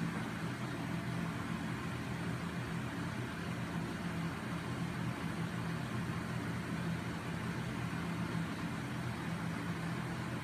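A homemade flywheel-and-crank machine driven by a small 12-volt DC electric motor, running steadily with an even hum and whir from the spinning flywheel.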